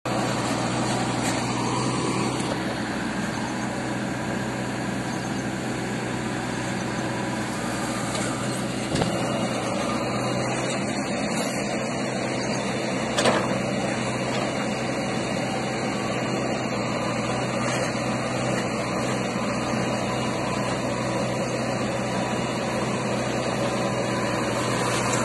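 Diesel engine of a JCB 3DX backhoe loader running steadily under load while the backhoe digs soil. Two sharp knocks break through, a faint one about 9 seconds in and a louder one about 13 seconds in.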